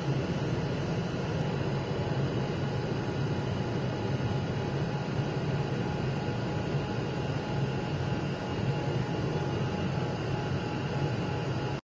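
CO2 laser cutter running while it cuts through thick foam: a steady machine whir with a low hum and a few faint high steady tones.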